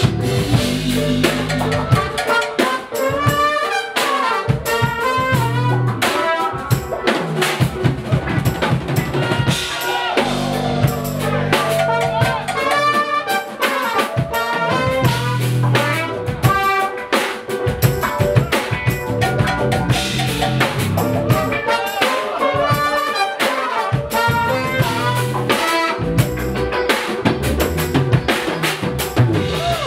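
Live jazz-fusion band playing: drum kit with frequent hits under electric bass, horns and keyboards playing quick melodic lines.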